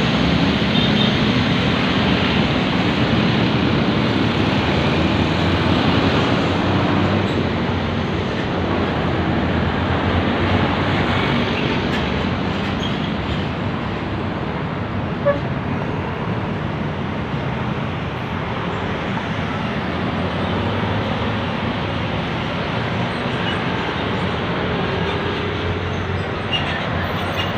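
Steady city road traffic from motorcycles, cars, buses and trucks driving past on a busy boulevard, a little louder in the first several seconds.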